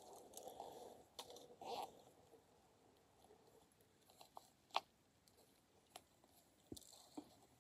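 Near silence with a soft rustle in the first two seconds, then a few faint scattered clicks and taps, the sharpest just under five seconds in.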